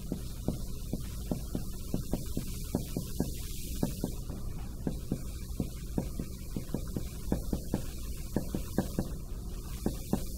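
Marker writing on a whiteboard: a string of short, irregular taps and strokes, a few each second, over a steady low hum.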